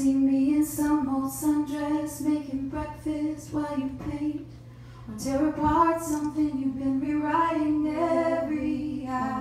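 A woman singing a slow song live into a microphone, holding long notes. There is a short break about four seconds in, then she sings on.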